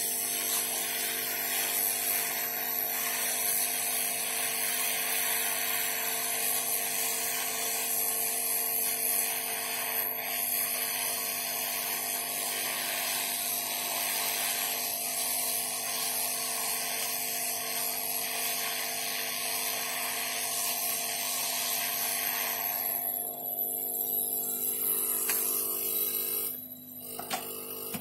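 Hot-air rework blower running with a steady, loud hiss, cutting off about five seconds before the end.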